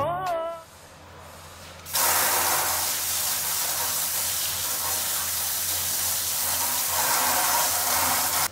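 A washbasin tap turned on about two seconds in, with water running steadily into the sink. Before it, the last sung note of a song trails off.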